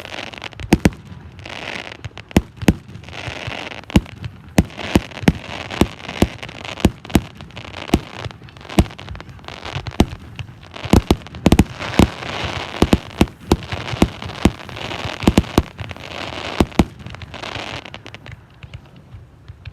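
Fireworks display: a rapid, irregular string of sharp bangs with crackling in between, thinning out near the end.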